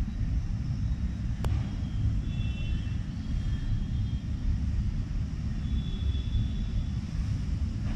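Steady low rumble throughout, with a single sharp click about a second and a half in and a few faint high tones here and there.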